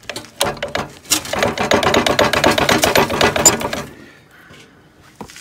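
Rapid metallic rattling and clattering for about three and a half seconds, stopping abruptly, as the radial arm saw's heavy motor is shaken and shifted in its cast-iron yoke to work it loose.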